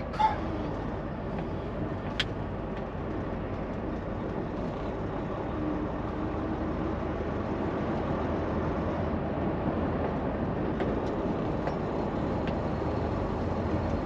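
Steady engine and road noise of a semi-truck heard inside its cab, with one sharp click about two seconds in.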